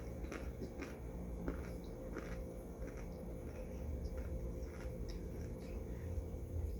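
Someone chewing and crunching microwaved cornstarch chunks, with short scattered crunches over a steady low hum.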